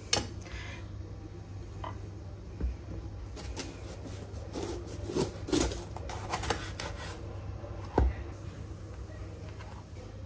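Chef's knife cutting red bell peppers in half on a bamboo cutting board: scattered short cuts and knocks of the blade on the board, with a firmer knock about eight seconds in.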